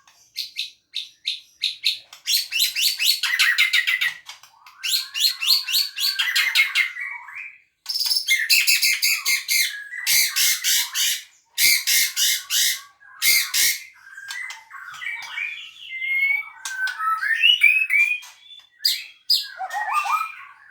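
Songbird singing: fast runs of sharp, rapidly repeated chirping notes with pauses between them, giving way after about fourteen seconds to shorter, lower whistled phrases.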